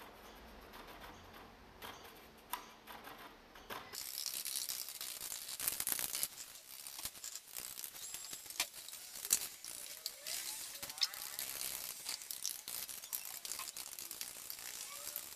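Paintbrush dabbing and scraping grout onto the rough cement-coated foam rock, with scattered clicks and small knocks. A steady hiss comes in suddenly about four seconds in.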